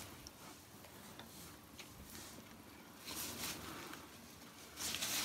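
Faint rustling and a few light ticks of handling noise, louder from about three seconds in and again near the end.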